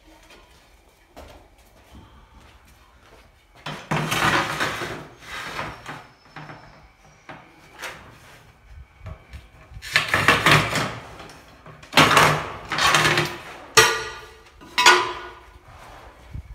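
Scraping and clattering from tile-laying work: a trowel working tile adhesive and ceramic tiles being handled. There is one burst about four seconds in, then a run of louder bursts over the last six seconds.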